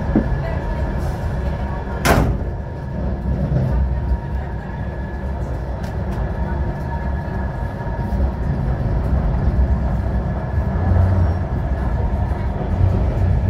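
Passenger train running on the rails, heard from inside the carriage: a steady low rumble with a faint thin whine over it, and a single sharp knock about two seconds in.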